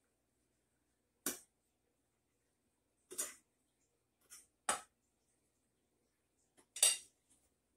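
A metal fork scraping and clinking against a plate of breading: four short strokes spaced a second and a half to two seconds apart, with a few fainter clicks between.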